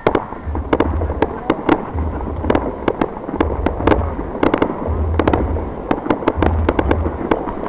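Fireworks going off: a dense, irregular string of sharp pops and crackles, some in quick clusters, over a low rumble that swells and fades about every second and a half.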